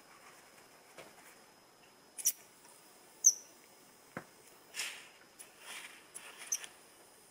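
Several short hissing blasts of compressed air from a blow gun pressed into a Brembo motorcycle front brake master cylinder, starting about two seconds in, trying to force out a seized piston that does not budge.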